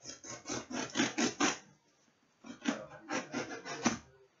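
Scissors cutting through packing tape on a cardboard box: quick scraping, rasping strokes in two runs, with a short pause between them.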